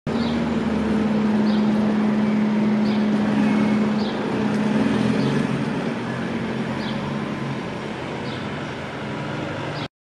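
Steady outdoor background of road traffic with a low hum, loudest in the first four seconds, while house sparrows give short high chirps about once a second. The sound cuts off abruptly just before the end.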